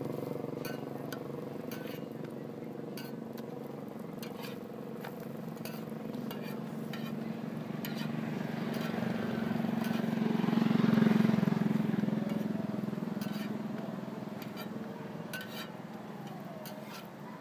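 Street traffic: a motor vehicle's engine running, swelling as it passes, loudest about eleven seconds in, then fading. Scattered light clinks and clicks sound over it.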